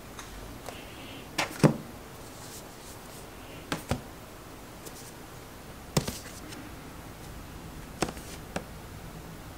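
Books and then a small e-reader being set down on a shelf top: a handful of separate knocks and taps, the loudest a little under two seconds in.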